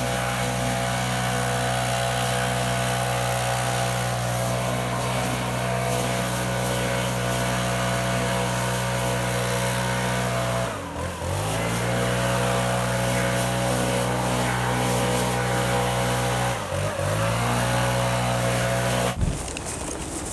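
Petrol leaf blower running at high throttle, blowing fallen leaves across grass. Its engine note dips and picks back up twice, then stops abruptly near the end.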